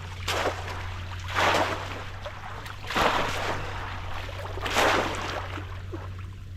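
Water splashing in four loud bursts, each about one and a half seconds after the last, as a bamboo polo plunge basket is thrust down into shallow water.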